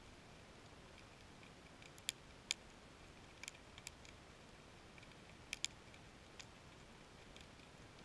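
Sharp, short underwater clicks, about a dozen at irregular intervals over a faint hiss, typical of snapping shrimp.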